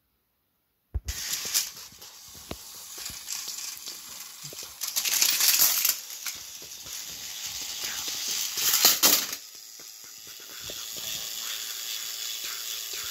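Battery-powered Thomas & Friends toy engines running on plastic track: a steady whirring of small motors and gears with clicking and rattling wheels. The sound grows louder and more rattly twice, as one engine is pushed off the track and falls.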